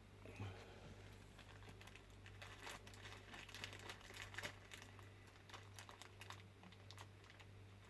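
Faint crinkling and many small clicks of plastic packaging and miniatures being handled, over a low steady hum.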